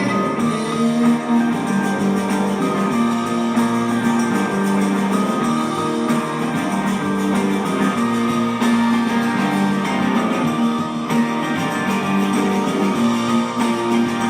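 Live rock band playing an instrumental passage, led by strummed guitar chords.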